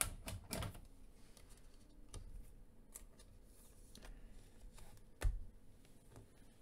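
Faint rustling and clicking of a trading card being handled in a plastic sleeve and toploader, with a louder thump a little over five seconds in.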